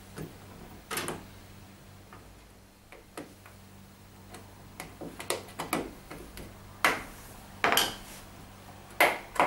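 Screwdrivers clicking and scraping against the door seal's wire retaining spring and the washing machine's metal front as the spring is worked into place around the rubber gasket. Scattered sharp clicks, sparse at first and more frequent in the second half, with a few louder clacks near the end.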